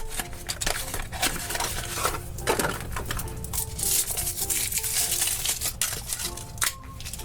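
Foil wrapper of a chocolate surprise egg crinkling as it is peeled off, with many small clicks and taps as the chocolate shell is handled and broken open. Quiet background music plays under it.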